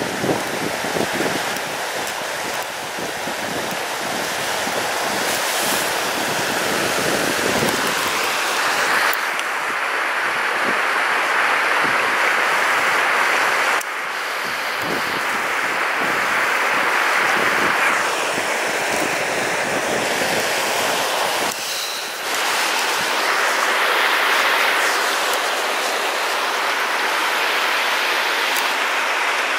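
Steady rushing of a shallow, rocky river's rapids over boulders, with wind buffeting the microphone through the first two thirds.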